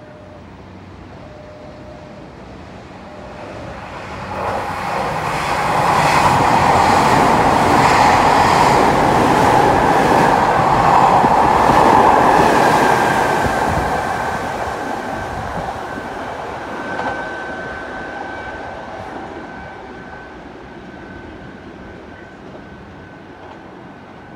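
Nankai electric train running through the station platform at speed: its running noise builds over a few seconds, peaks with a quick run of wheel clicks over the rail joints, then fades away as the train draws off, with a faint steady whine lingering.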